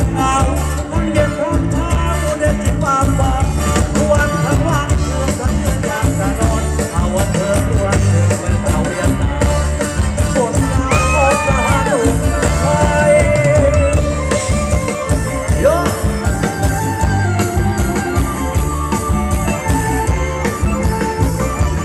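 Live band playing Thai ramwong circle-dance music, a drum kit keeping a steady beat under a sung melody.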